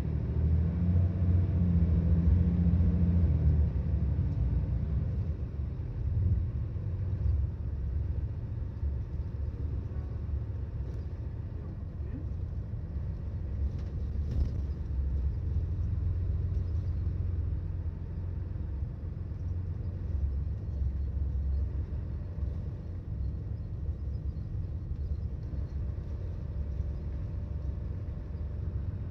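Volvo 8700 bus diesel engine running, heard from inside the bus as a low, steady rumble, louder for the first few seconds and then settling to an even level.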